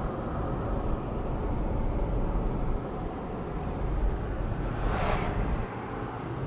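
Steady low road and engine rumble inside a moving car's cabin. About five seconds in, an oncoming SUV passes close by with a brief whoosh.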